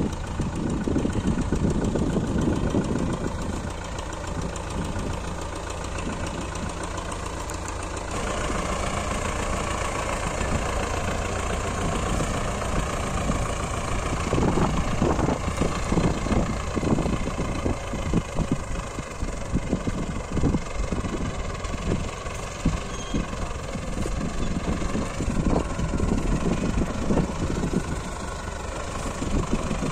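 A tractor's diesel engine runs steadily while driving a PTO boom sprayer through a field. Irregular low thumps come through in the second half.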